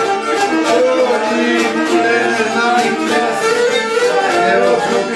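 Mandolin being played live, plucking a quick folk tune with other string instruments in the mix.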